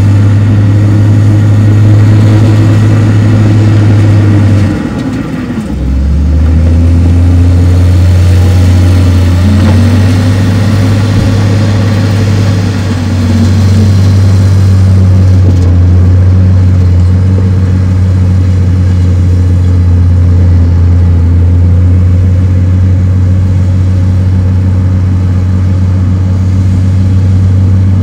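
Diesel engine of heavy earthmoving machinery running steadily under load. The engine pitch rises and falls for several seconds after a brief drop in level about five seconds in.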